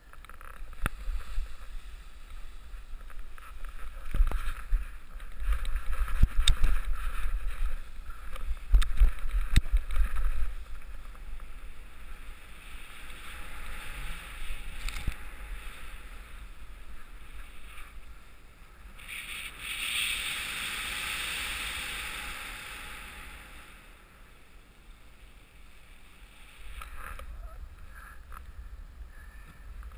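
Wind buffeting the camera microphone during a paraglider's running launch and takeoff on snow: a low rumble with scattered knocks and rustles in the first ten seconds, then a rush of air about twenty seconds in that dies away.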